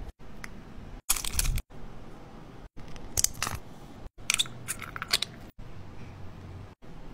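A plastic phone case being handled: short bursts of clicks and clattering, about a second in, around three seconds and again around four and a half seconds, broken by abrupt cuts to silence.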